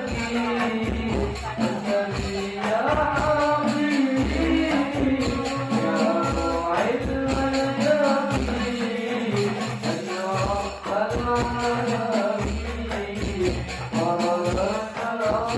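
Hadrah music: boys singing a sholawat melody into microphones over rebana frame drums with jingles and deep drum beats keeping a steady rhythm.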